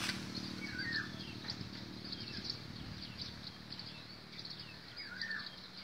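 Small birds chirping faintly now and then, with short sweeping chirps about a second in and again near the end, over a steady low background hum.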